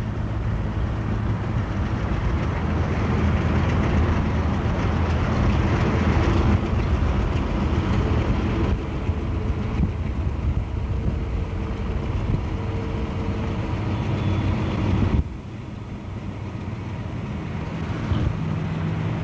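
Steady low rumble of vehicles in motion, heard from a car pacing a freight train led by GE C40-8 diesel locomotives across the river. The level drops suddenly about fifteen seconds in, then slowly builds again.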